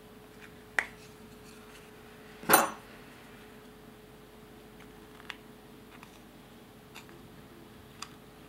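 A sharp click, then a louder clack about two and a half seconds in, followed by scattered light ticks of a small metal spatula digging pressed eyeshadow out of its compact.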